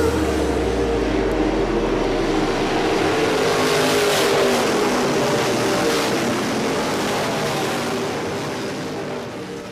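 Several dirt-track race cars running on the track, a steady engine din that fades out near the end.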